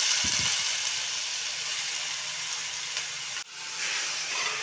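Grated watermelon rind sizzling in hot ghee in a stainless steel pan, a steady hiss that eases slightly over time. A soft low thud comes just after it starts, and the sizzle cuts out briefly about three and a half seconds in before resuming.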